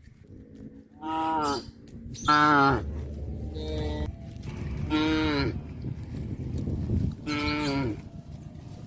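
Cattle mooing: five short calls, each about half a second long and several falling in pitch, with the fourth one fainter.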